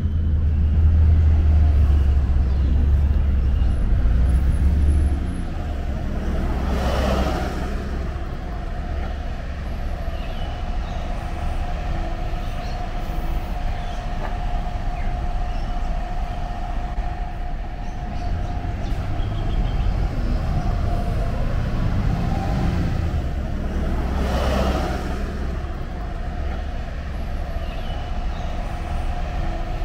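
Street traffic at a bus stop: a city bus running close by with a low engine rumble, loudest in the first five seconds, and a steady hum in the background. Two vehicles swish past, about seven seconds and about twenty-four seconds in.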